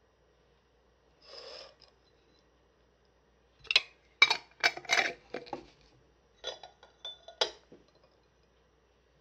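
Kitchen utensils and dishes clinking: a short rustle, then a quick run of clinks and knocks, and a few more with a faint ring near the end.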